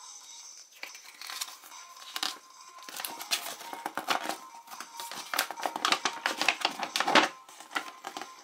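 Crinkling and rustling of a blind bag's foil wrapper and a folded glossy paper leaflet as they are handled and unfolded, in many quick irregular crackles, loudest shortly before the end.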